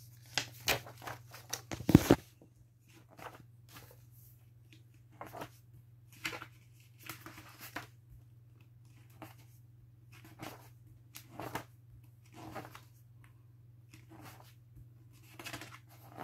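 Pages of a thick book being turned one after another, each a short papery swish, about one a second. A louder thump about two seconds in.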